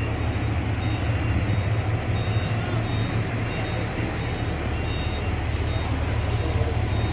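Oshkosh Striker airport fire truck's diesel engine running low and steady as the truck drives slowly past, with faint short high beeps repeating now and then.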